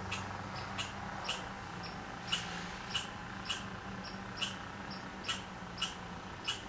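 A small bird chirping repeatedly: short, high chirps about one and a half times a second, unevenly spaced, over a faint steady low hum.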